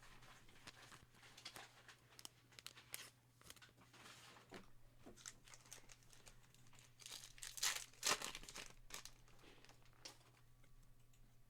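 Faint crinkling and tearing of foil trading-card pack wrappers, with cards being handled, loudest about seven to eight seconds in.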